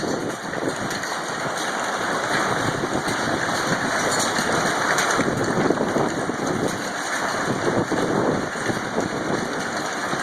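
Hail pelting down heavily: a dense, continuous clatter of hailstones striking.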